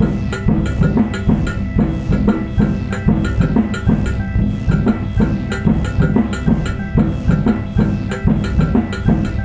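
Live electronic music: sustained synthesizer tones over a fast, even percussion pattern of drum hits.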